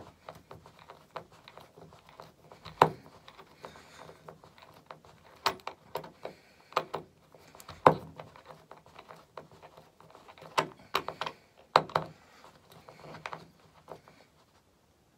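Hand screwdriver driving a screw through a brass door stop into a timber skirting board, self-tapping without a pilot hole: irregular clicks and creaks as the screw is pushed and turned.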